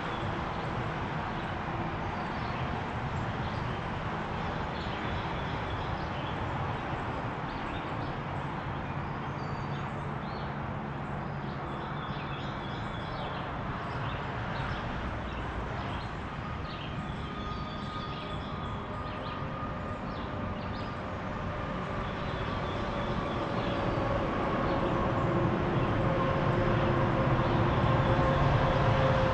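Steady hum of highway traffic. From about halfway a vehicle's drone comes in, a held tone sinking slightly in pitch and growing louder toward the end. Small birds chirp faintly now and then.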